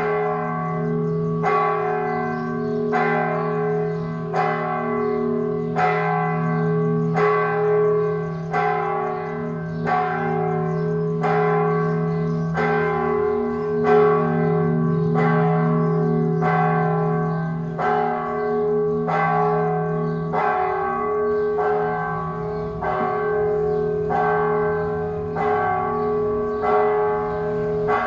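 Church bells ringing the call to mass. One bell is struck steadily about every second and a half, and a lower tone hums on between the strikes.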